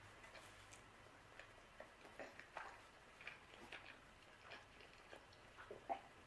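Faint sounds of a person chewing a bite of pizza with the mouth closed: scattered soft, irregular clicks.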